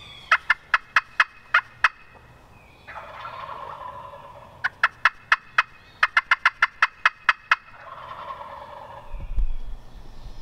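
Wild turkeys calling from the roost: two runs of quick, sharp yelping notes, each followed by a gobble about a second long. Low thumps come in near the end.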